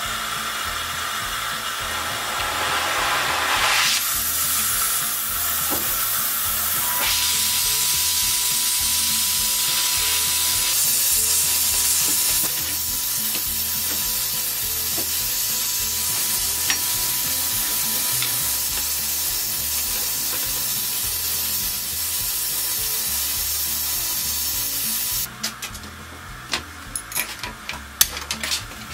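Steady hiss of torch flames heating an iron wagon tire, then the heated tire sizzling on the wooden wheel as it is set. Near the end the hiss drops away and a run of sharp hammer taps rings on the tire.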